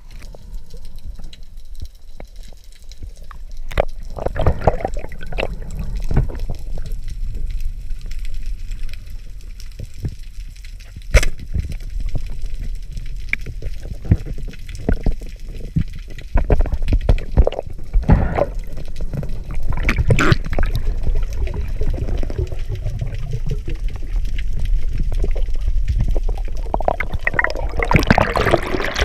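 Underwater sound picked up through a GoPro Hero 4's waterproof housing: a muffled low rumble of moving water with irregular sloshing swells and a few sharp clicks, and a louder stretch of bubbling noise near the end.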